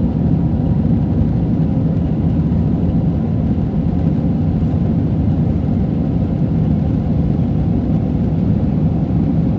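Steady cabin noise of an Airbus A320 climbing after takeoff: a deep, even rumble of jet engines and rushing air heard through the fuselage, with a faint steady tone above it.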